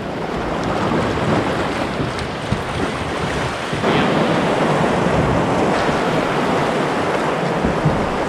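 River rapids rushing and churning around a drift boat as it runs through whitewater, with wind buffeting the microphone. The rush grows louder about four seconds in.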